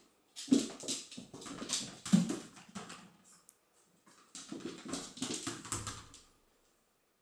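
A squeaking toy egg squeaking in quick runs as a cat bats it across a laminate floor: one run in the first three seconds, another from about four to six seconds in.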